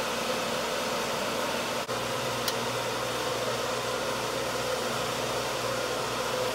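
Steady background hum and hiss, like a fan or similar machine running, with one faint click about halfway through.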